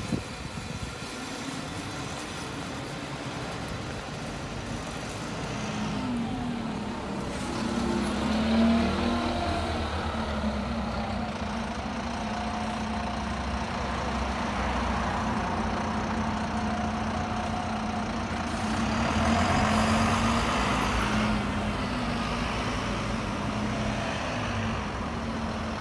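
Double-decker bus engine running as the bus pulls away, a steady engine note from about six seconds in that grows louder twice.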